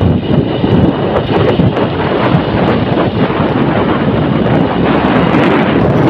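Loud wind rushing and buffeting over the microphone of a moving vehicle, with the vehicle running underneath.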